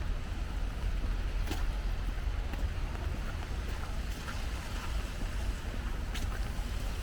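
Wind buffeting the microphone in a steady low rumble over a wash of rain and wet street noise, with a few faint taps now and then.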